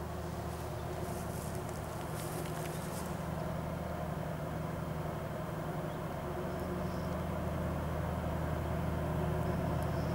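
Diesel engines of a multiple-unit set of 2TE10M twin-section locomotives, two-stroke opposed-piston 10D100s, hauling a loaded freight train. They make a steady low drone that grows louder as the train approaches.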